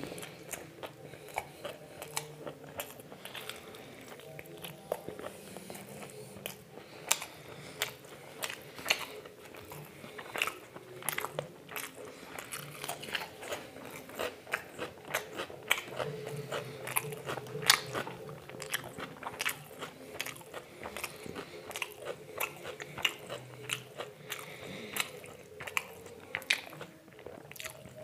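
Close-miked chewing and biting of crunchy food, with many sharp, irregular crunches and mouth clicks, several a second, over a faint steady hum.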